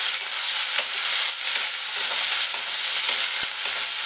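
Sliced onions sizzling in hot mustard oil in a nonstick kadai, being sautéed toward light golden while a wooden spatula stirs them. A steady sizzle with scattered light ticks of the spatula against the pan.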